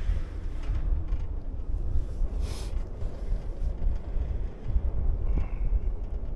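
Wind buffeting the microphone of a camera riding a chairlift, a steady uneven low rumble. There is a short hiss about two and a half seconds in.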